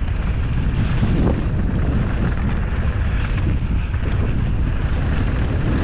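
Steady wind rushing over the microphone of a mountain bike's first-person camera at speed, mixed with the rumble of the tyres rolling over the dirt and gravel trail.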